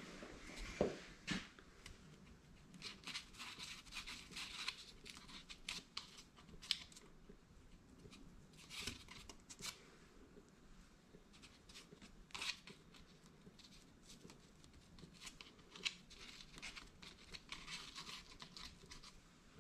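Faint, irregular scraping and rubbing of hands and a tool working epoxy putty onto a deer's skull cap, with a few light clicks.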